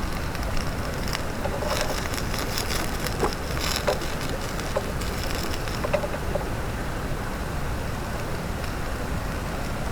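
Steady rush of a mountain stream, with a few scattered clicks and crackles on top.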